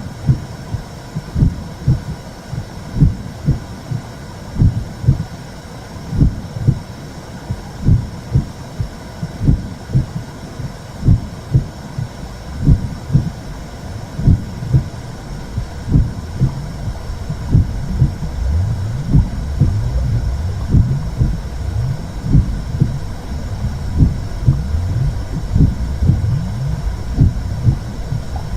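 Womb sound for settling a baby: a muffled heartbeat thumping in low doubled beats a little more than once a second, over a steady low whooshing rumble that grows louder about two-thirds of the way through.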